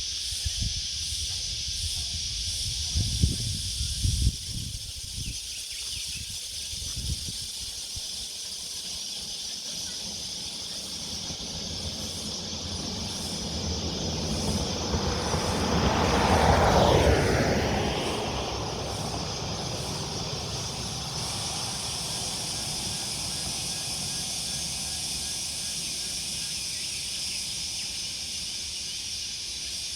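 A single vehicle passes on a country road, swelling from about 14 s to a peak around 17 s with a falling pitch sweep as it goes by, then fading. Under it a steady high-pitched hiss runs throughout, with a few low thumps in the first few seconds.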